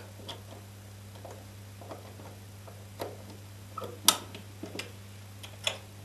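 Master Lock 5401 key safe being opened: small irregular clicks as its four combination dials are rolled, then a sharper, louder click about four seconds in as the release is worked and the door comes open, with another click near the end.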